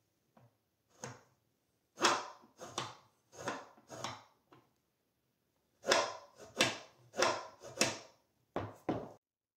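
Homemade plywood table saw fence's clamping mechanism being worked by twisting its dowel handle, which moves the rear clamp jaw outward on a threaded rod. The sound is a series of short wooden scraping strokes about half a second apart, in two runs with a pause of a second or so between.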